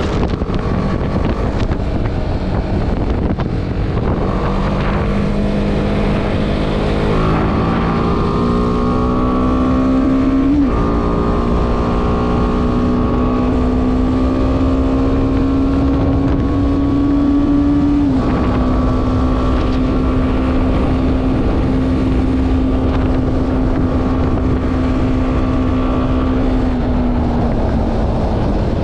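BMW G310R's single-cylinder engine under way, climbing in pitch as it pulls through the gears, with two sharp drops in pitch about ten and eighteen seconds in, then holding steady and easing off near the end. Wind rushes over the helmet-mounted microphone throughout.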